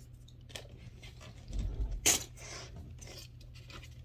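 Oracle or tarot cards being handled: light rustling and small taps, with a low thump about one and a half seconds in and a sharper rustle just after two seconds.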